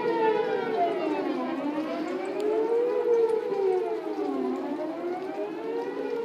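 Outdoor tornado warning sirens wailing, the pitch rising and falling in slow cycles about three seconds long.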